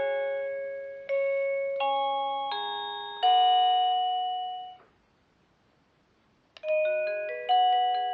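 Multi-tune musical doorbell chime playing a melody in slow, bell-like notes and chords that each fade away, ending about five seconds in. After a short silence a new tune starts with quicker notes.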